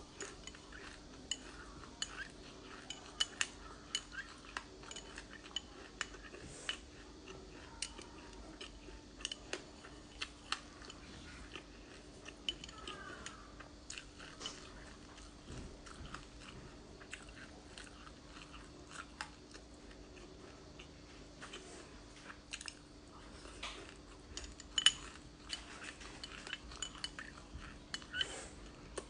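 Black sesame seeds crunching as they are chewed, with a metal spoon clinking and scraping against a glass dessert cup. Many short crisp clicks throughout, the loudest a little past three quarters of the way through.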